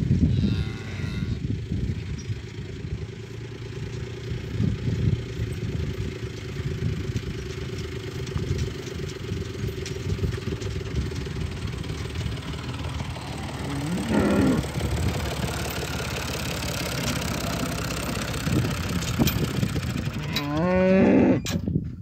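Cattle mooing: a short call about two-thirds of the way through and a longer, louder one near the end, over a steady low rumble.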